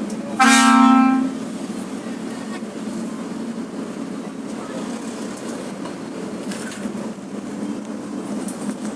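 Bus telolet horn giving one loud blast about a second long, starting about half a second in, sounded by a short-circuited horn button. Under it runs the steady low hum of the bus's engine.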